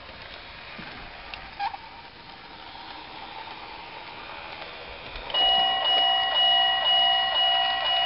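Model railway level crossing's electronic warning bell starting up about five seconds in and repeating evenly, about two rings a second, as a train approaches the crossing.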